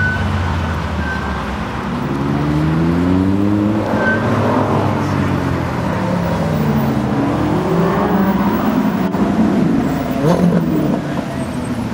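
Spyker C8 Aileron and Ferrari 458 Italia accelerating past one after the other, their V8 engines revving with rising pitch. Other road traffic runs underneath.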